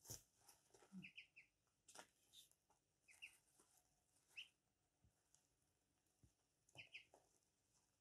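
Ducklings peeping softly in short groups of two or three high peeps, with a few faint taps and paper rustles as they peck crumbled feed off a newspaper.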